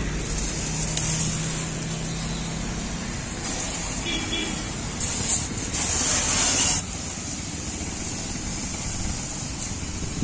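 Battery-powered twin 12 V motor sprayer pump running while its brass spray gun shoots a high-pressure water jet: a steady hiss of spray over a low motor hum, the hiss loudest for about two seconds past the middle.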